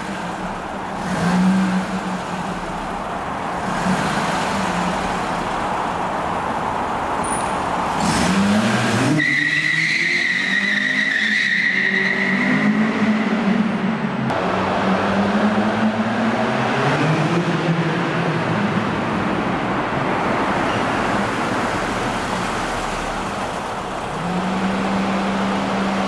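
Toyota Celica GT-S 2ZZ-GE four-cylinder engine running and revving in several rising sweeps as the car drives around a concrete parking garage, with a tire squeal lasting a few seconds about nine seconds in.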